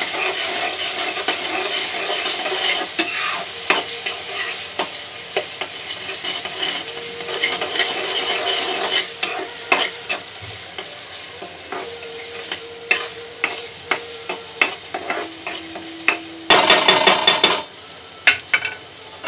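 Spiced masala sizzling and frying in a dark nonstick kadhai while a spoon stirs it, with many small taps and scrapes of the spoon against the pan. A brief loud clatter near the end.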